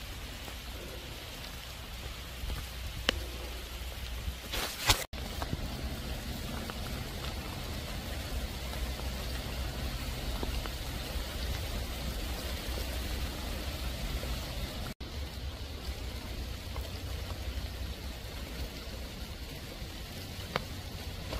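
Heavy rain falling steadily on ground and leaves, with a brief sharp knock about five seconds in.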